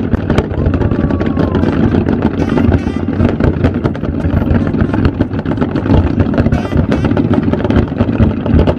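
A fireworks barrage: many shells bursting close together, a steady run of sharp bangs and crackling over a continuous low rumble.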